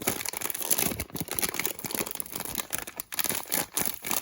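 Empty foil chip bag crinkling and crackling in a rapid, irregular run as stuffing is pushed into it.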